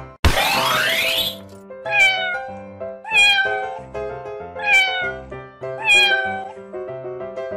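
A cat meow sound effect, four falling meows about a second apart, over bouncy children's background music, with a rising swish just after the start.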